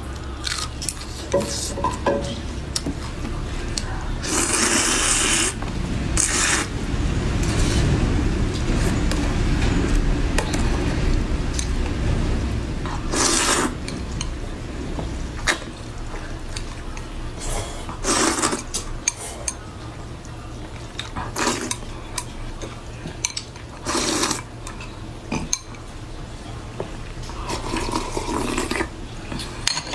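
Close-miked eating sounds: irregular wet chewing and slurping, with utensils knocking against dishes.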